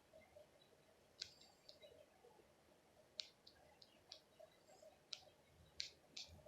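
Near silence broken by faint, sharp little clicks, about nine of them at irregular intervals.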